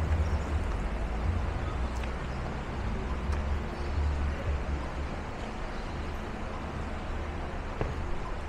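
Traffic on a wet city street in the rain: a low engine rumble from vehicles, easing slightly over a few seconds, over a steady hiss.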